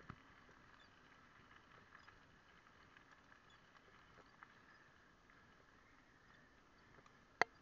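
Faint ticking and rattling from a bicycle-mounted camera jolting along an unpaved path, over a steady faint hum, with one sharp knock near the end.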